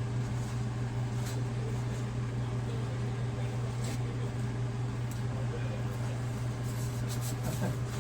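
Steady low mechanical hum of a running motor or engine, with a few faint clicks.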